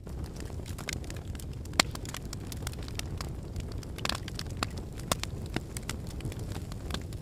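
Fireplace fire crackling: irregular sharp pops and snaps over a low steady rumble, with louder pops about two seconds and four seconds in.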